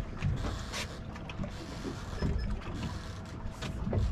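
Water lapping against the hull of an anchored fishing boat, with low wind rumble on the microphone and a few short, sharp clicks from handling the rod and catch.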